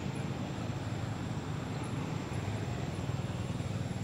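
Steady outdoor background noise: a continuous low rumble with hiss.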